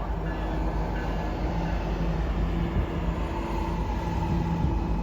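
Norfolk Southern diesel freight train rolling slowly past, with a steady low rumble from the locomotive engines and the wheels on the rails.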